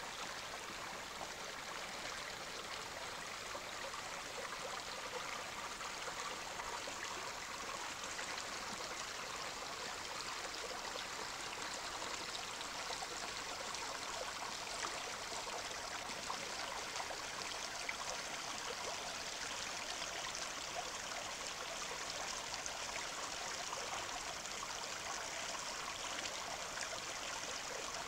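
Small rocky stream running over stones, a steady rush of water.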